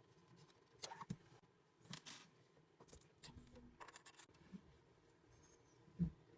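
Faint handling noises: a few short scrapes and clicks of small metal parts, with a low thump near the end.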